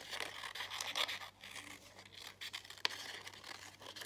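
Small scissors snipping through thin paper, with the paper rustling as it is turned in the hand; quiet, with a few sharper snips.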